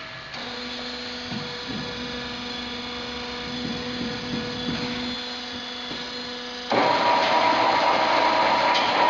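Fan flanging machine running with a steady motor hum. About seven seconds in it turns suddenly louder and harsher as its rollers work the spinning sheet-metal fan cylinder.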